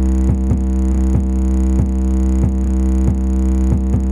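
Electronic music with a heavy, steady bass note and a drum hit about every two-thirds of a second, played through a boAt Stone 200 Bluetooth speaker in a bass test.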